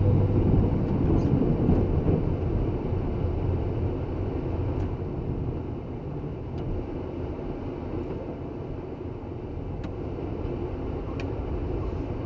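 Snow plow truck driving, heard from inside the cab by a dash camera: a steady low rumble of engine and road noise, with a few faint ticks. Music fades out in the first second or so.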